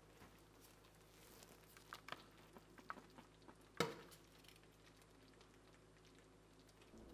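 Dye bath simmering in a stainless steel pan on a gas stove: faint bubbling with scattered small pops and ticks, and one sharper click a little under four seconds in.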